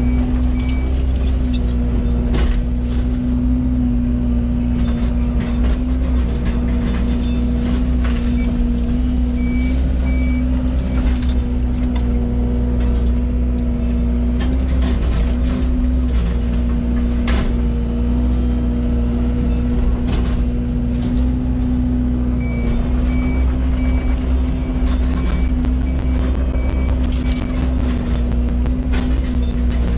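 Yanmar VIO80 excavator's diesel engine running steadily. A travel alarm beeps in runs of short, rapid beeps: at the start, about a third of the way in, and through much of the last quarter. Scattered sharp cracks and knocks sound over the engine.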